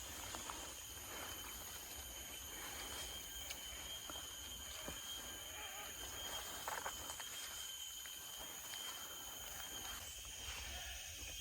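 Tropical forest ambience: a steady high-pitched insect drone held on several pitches at once, with scattered faint chirps and ticks and one brief louder sound about seven seconds in.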